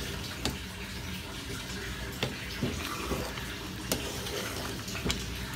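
A metal spoon stirring runny semolina halwa in a metal pan, the wet mixture sloshing steadily, with about five sharp clinks as the spoon knocks the pan.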